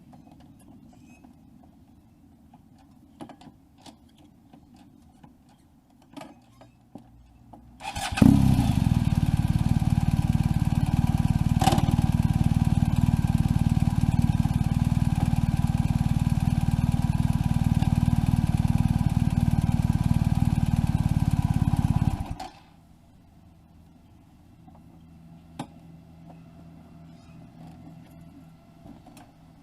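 A machine starts sharply, runs steadily at an even pitch for about fourteen seconds, then stops abruptly. Soft clicks and knocks come before and after it.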